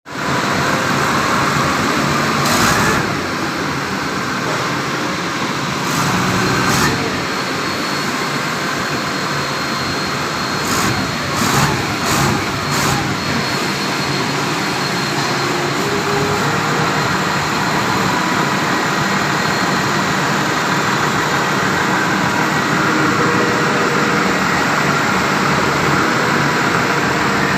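Forklift engine running steadily at idle, with a few sharp metallic knocks over it, including four in a row about eleven seconds in.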